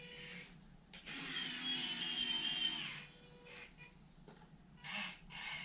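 Linear servos (Actuonix, formerly Firgelli) on an RC excavator's arm whining as they drive the bucket and boom: a high whine for about two seconds as the bucket scoops wood chips and lifts, then another short burst near the end.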